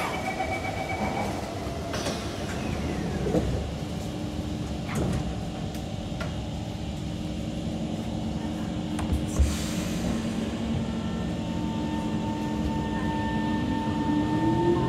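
Kawasaki C151 metro train at a station. A two-tone door chime sounds briefly, then the doors knock shut while the train's equipment hums steadily. Near the end the traction motors begin a rising whine as the train starts to pull away.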